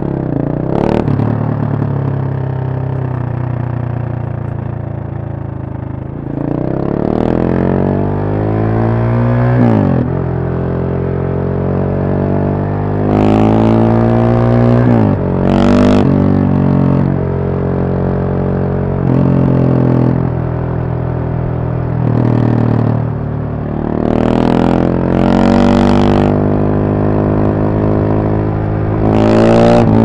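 KTM 690 Supermoto's single-cylinder engine running at low, steady revs for about six seconds. It then accelerates through the gears, the revs climbing and dropping sharply at each upshift, about five times. A few short, sharp bursts of noise come between the shifts.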